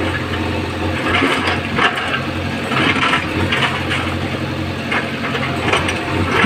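JCB backhoe loader's diesel engine running steadily while its loader bucket pushes into a brick wall, with repeated cracks and clatters of brickwork breaking and bricks falling onto the rubble.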